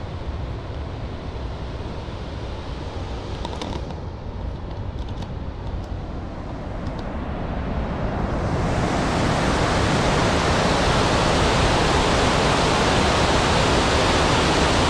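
Snowmelt water pouring over a dam's natural-overflow spillway, a steady rush of water. It grows louder and brighter a little over halfway through.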